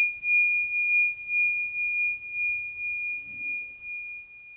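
A single high meditation bell or chime ringing on after being struck, one clear tone that wavers in loudness as it slowly fades, stopping abruptly at the end.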